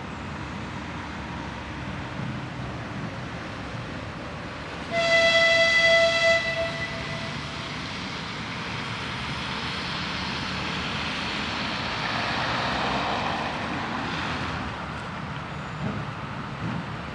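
C30-M diesel shunting locomotive running as it approaches slowly, sounding one horn blast about five seconds in that lasts about a second and a half. A rushing noise from the locomotive swells from about ten seconds in and fades near the end.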